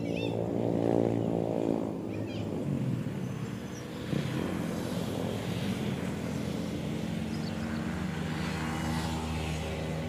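A motor engine drones steadily with a low pitched hum, swelling about a second in and then holding level.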